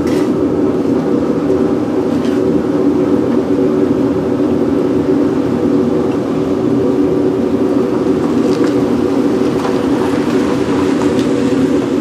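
Forced-air propane burner of a home-built casting furnace running steadily, fed by a blower salvaged from a microwave oven, with a few faint clinks.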